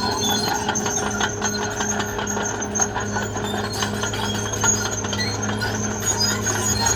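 Caterpillar D6R XL bulldozer's diesel engine running steadily under work, with short metallic clanks and knocks over the drone.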